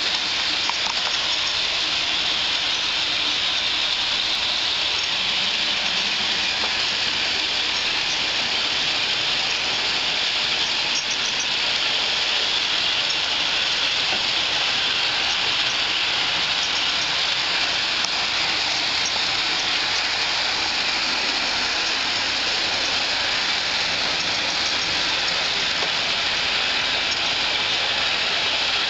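Bachmann HO-scale model passenger train running along its track on a wooden shelf: a steady rolling hiss and whir of the wheels and motor.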